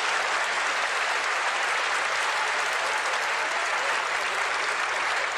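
Audience applauding steadily, a sustained burst of clapping from a large crowd.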